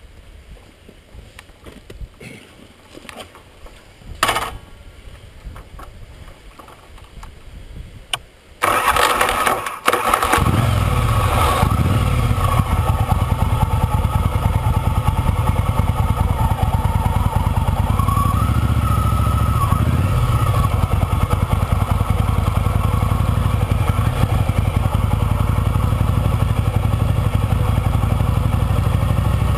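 A few clicks and a knock, then a motorcycle engine starts about nine seconds in and runs steadily and loudly as the bike rides off.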